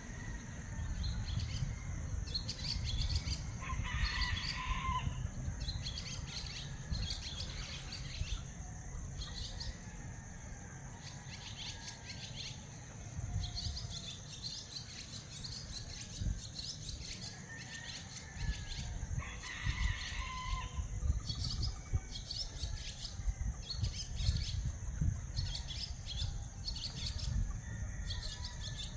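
Many small birds chirping at dawn, with a rooster crowing twice, about four seconds in and again near twenty seconds. A steady high hiss and a low rumble run underneath.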